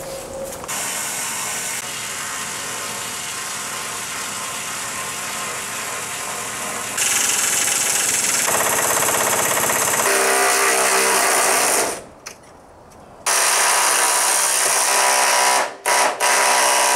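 Power tool running almost without a break, its tone changing suddenly several times, with a pause of about a second two-thirds of the way through and two short dips near the end.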